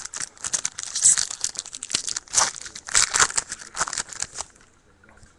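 Hockey card pack wrapper being torn open and crinkled for about four and a half seconds, a dense crackling rustle that stops well before the end.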